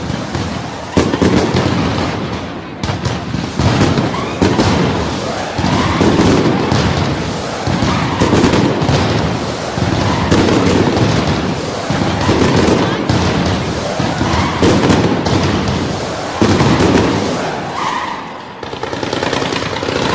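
A fireworks display: dense rapid bangs and crackling like machine-gun fire, with heavier blasts about every second or two.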